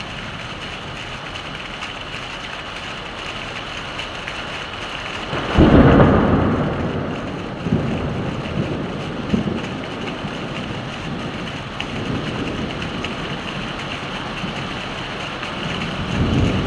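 Heavy rain falling steadily, with a loud clap of thunder about a third of the way in that rumbles away over several seconds, and another low thunder rumble building near the end.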